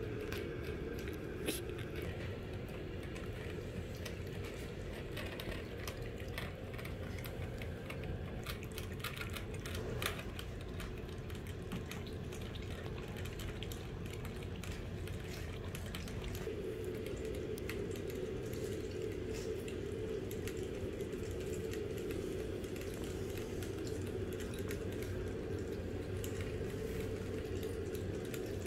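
A dog licking and drinking at a bottle's metal sipper tube, with scattered small wet clicks over a steady low hum.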